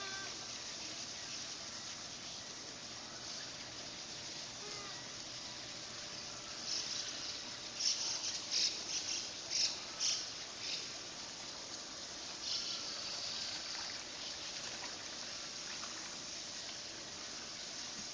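Water hissing and spraying from a leak in a garden hose, with a run of short, louder spurts in the middle as a young Japanese macaque handles the hose at the leak.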